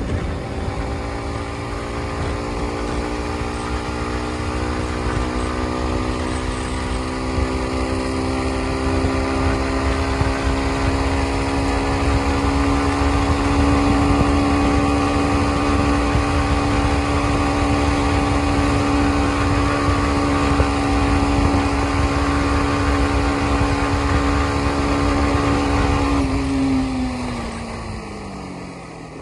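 Yamaha MT-15's single-cylinder engine pulling hard in a high gear on a top-speed run, its note slowly climbing as the bike passes 100 km/h, over a rush of wind. Near the end the throttle closes and the engine note falls away.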